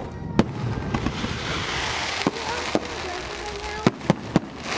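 Aerial fireworks display: shells bursting with sharp bangs, one about half a second in, two more in the middle and three in quick succession near the end, with a spell of crackling stars between them.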